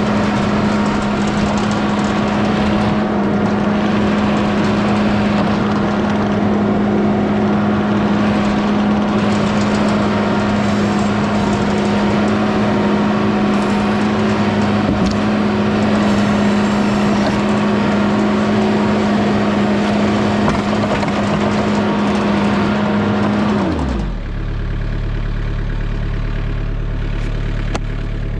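Mini skid steer's engine running steadily at high revs, then dropping abruptly to idle about 24 seconds in and idling evenly after that.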